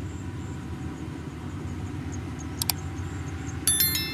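Kubota DC70 combine harvester's diesel engine running steadily while it cuts rice. About two and a half seconds in come two sharp clicks, then near the end a bright ringing chime, an added subscribe-button sound effect.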